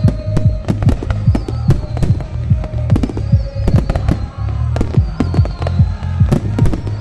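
Fireworks display: shells and crackers bursting in quick succession, several sharp bangs a second over a deep rumble, with music playing underneath.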